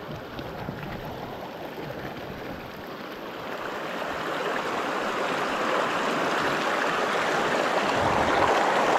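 Shallow mountain creek rushing over stones. It grows steadily louder from about halfway through as the microphone nears the water.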